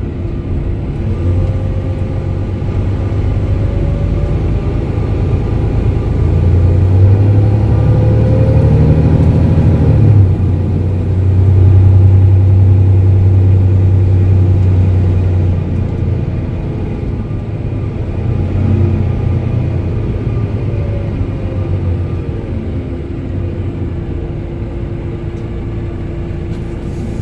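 Mercedes-Benz OM470 inline-six diesel of a Setra MultiClass 500 LE bus running under way with a low drone. It rises in pitch for a few seconds, changes abruptly at about ten seconds in, holds loud and steady for a while, then eases off.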